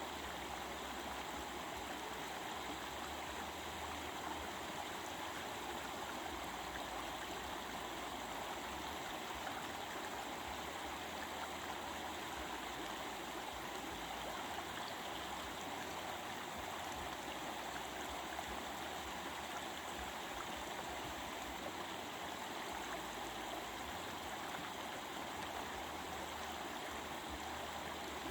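Stream of water flowing and babbling steadily, an even rushing without pauses or changes.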